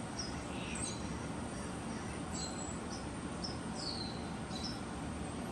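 Steady background noise with many brief, high-pitched chirps scattered through it, some dropping in pitch.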